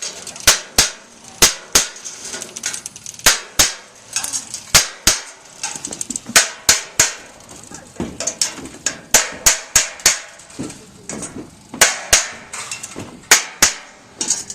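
Hammer blows on metal counter flashing, driving it into the mortar joint of a brick chimney. A long run of sharp strikes comes in quick clusters of two to four, with brief pauses between the clusters.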